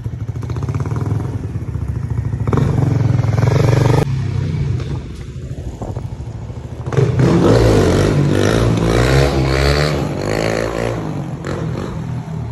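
Dirt bike engine running, growing louder until about four seconds in and then dropping off suddenly. From about seven seconds the motorcycle engine is heard again, louder, its pitch wavering up and down as it revs unevenly.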